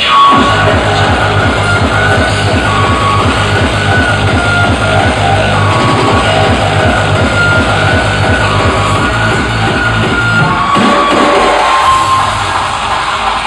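Loud music with a fast, steady beat over heavy bass and held synth-like tones. About eleven seconds in, the bass and beat drop out and a rising sweep leads into a quieter break.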